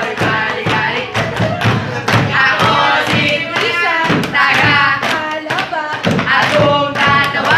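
Voices singing a song over a steady thumping beat.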